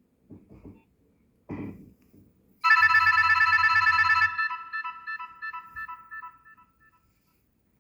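Nokia 6101 ringtone playing from the phone's speaker: a fast, trilling run of ringing tones starts about a third of the way in, then breaks into spaced notes that fade away. A few soft clicks come before it.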